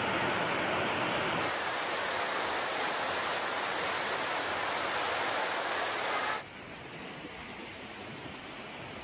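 Storm floodwater and rain noise, a steady rush that changes abruptly about a second and a half in and drops to a quieter rush about six and a half seconds in, as the footage cuts between clips.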